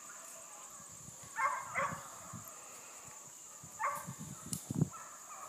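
Hunting hounds barking on a fox's trail: three short bays, about one and a half, two and four seconds in. A few low thumps follow about four to five seconds in, the last the loudest.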